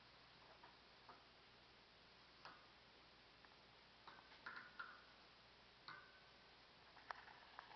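Faint, irregular light clicks and short scratching sounds from a gerbil cage, with a small cluster of scratches about four to five seconds in and a few sharper clicks near the end.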